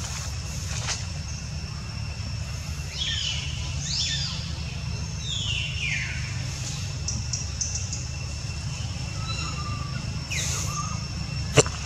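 Forest ambience: a steady low rumble and faint steady high tones, with a few short high calls sliding down in pitch, about three and six seconds in and again near the end. A single sharp click comes just before the end.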